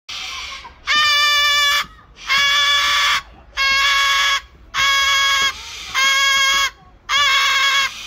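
White cockatoo squawking really loud: one quieter call, then six harsh, piercing squawks of just under a second each, coming in a steady rhythm about one every second.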